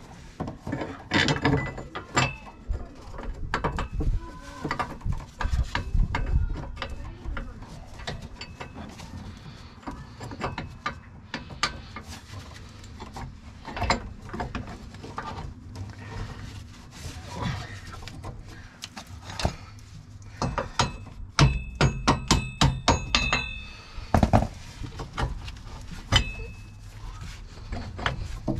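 Steel U-bolts clinking and clanking against the axle and spring brackets as they are worked back into place by hand, with a quick run of rattling metal clicks about 21 seconds in.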